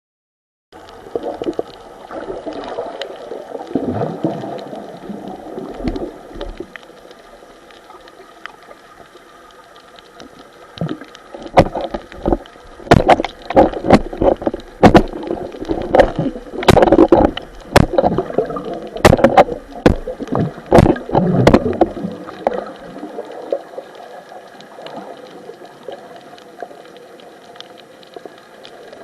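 Underwater noise of water movement and gurgling bubbles, with a run of sharp clicks and knocks through the middle.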